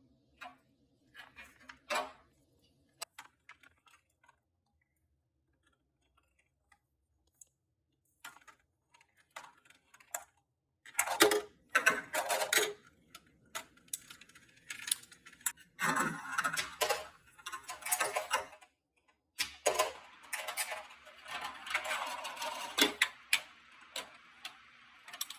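Marbles rolling and clacking along a plastic marble run track: scattered clicks at first, then from about eleven seconds in a dense, irregular rattle of many clicks.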